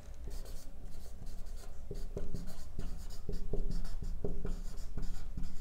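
Marker pen writing on a whiteboard: a quick run of short strokes and taps as letters are written, coming more often from about two seconds in.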